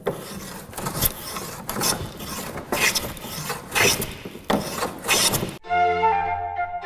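A hand tool rasping or rubbing across wood in repeated strokes, about one a second: woodwork on the wooden organ case under restoration. About five and a half seconds in, the strokes stop and music of held notes begins.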